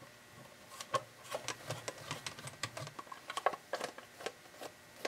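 Screwdriver backing the corner screws out of a Bird 43 wattmeter's metal case: irregular small clicks and ticks of the blade and screws on the metal.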